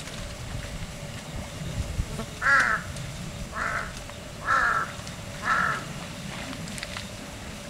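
A crow cawing four times, about a second apart, each caw short and harsh, over a low steady background rumble.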